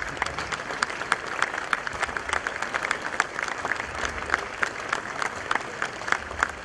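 Audience applauding steadily with many scattered claps.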